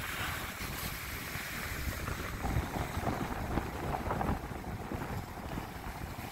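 Wind buffeting the microphone over the steady rush of heavy surf breaking on the beach, whipped up by an approaching hurricane.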